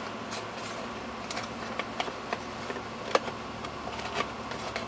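Scattered light clicks and rustles from a small plastic spray nozzle and its packaging being handled, over a steady low hum.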